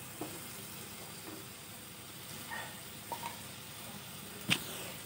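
Spiced onion-tomato masala sizzling steadily in oil in a steel kadhai, being fried until the oil separates. There is one sharp tap about four and a half seconds in.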